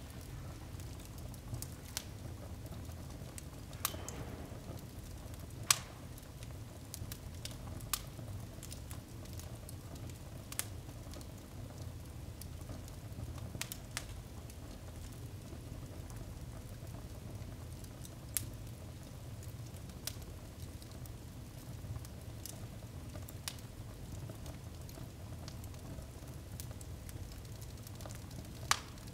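Wood fire crackling in a fireplace: irregular sharp pops and snaps over a low steady rumble, with a louder pop about six seconds in and another near the end.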